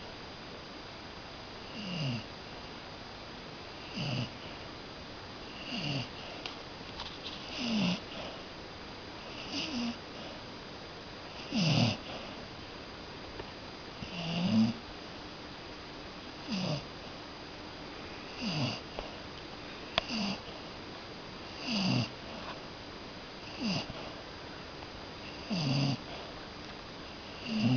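Cocker spaniel snoring in its sleep, a steady rhythm of one snore about every two seconds, each short and falling in pitch.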